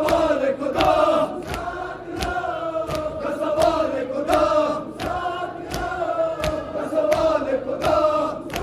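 A large group of men chanting a noha (Muharram mourning chant) in unison, with sharp hand slaps on the chest (matam) about twice a second.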